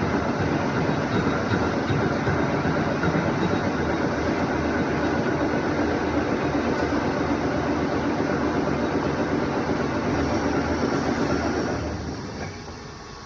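CNC lathe running with a steady mechanical noise, which winds down about twelve seconds in, leaving a low hum.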